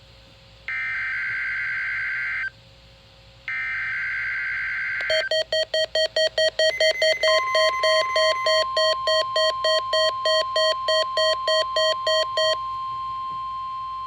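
A NOAA Weather Radio SAME digital alert header: two bursts of data tone, each about two seconds long, a second apart. Then rapid electronic beeping at about three beeps a second runs for roughly seven seconds, with a steady high tone coming in partway through and holding on after the beeping stops.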